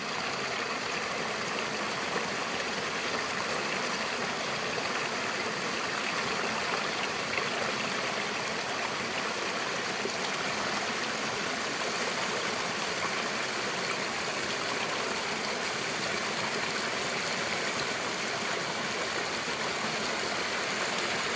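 A rocky mountain stream running and splashing over stones in small cascades, a steady rushing of water.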